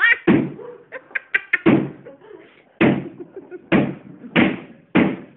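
Sledgehammer striking a wall, six heavy blows roughly a second apart.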